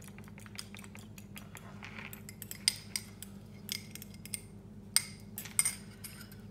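A metal fork beating an egg in a small glass bowl: quick, light clicks of the tines against the glass, then a few separate, sharper clinks of fork on glass from about halfway through.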